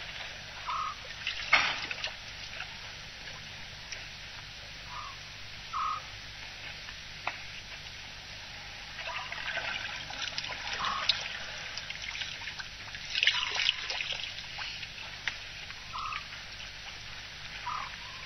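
African elephants drinking and wading at a waterhole: water trickling and splashing, with louder splashes about a second and a half in and again near the middle. A short call of one pitch repeats every few seconds over it.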